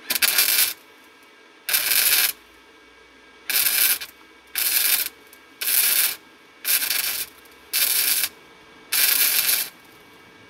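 Titanium Easy-Flux 125 flux-core wire-feed welder laying a row of short stitch welds on a steel angle bracket: eight bursts of crackling arc, each about half a second, with brief pauses between.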